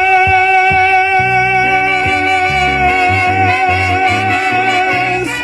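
Live band music: a long sustained note held over a moving bass line, the sung line just finished.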